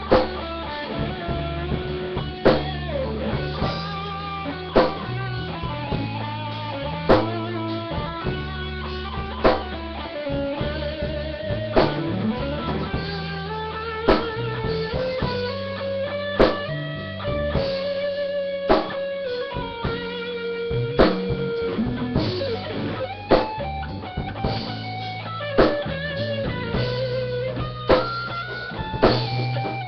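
Band music: an electric guitar plays a lead melody over bass and drums, with a strong drum hit about every two and a half seconds.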